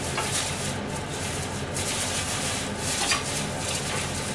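Dry rustling and rubbing in irregular bursts as an onion is handled and its papery skin rubbed and peeled off by hand, over a steady low hum.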